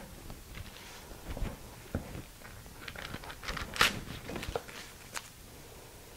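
A chef's knife cutting through a firm slab of fudge, with scattered knocks of the blade on a wooden cutting board and parchment paper crinkling as the pieces are handled. A few dull thumps come in the first two seconds, and a sharper crisp rustle a little past the middle is the loudest sound.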